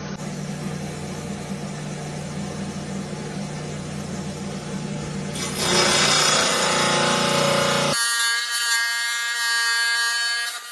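Rock saw running, its blade grinding through an agate, over a steady motor hum. The cutting noise gets louder about five seconds in. Near eight seconds the low hum drops away, leaving a higher ringing of several steady tones.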